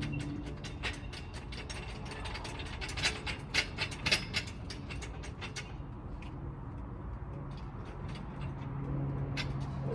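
Car jack being worked to lower a car, with a quick run of metallic ratcheting clicks that thins out to scattered clicks about halfway through.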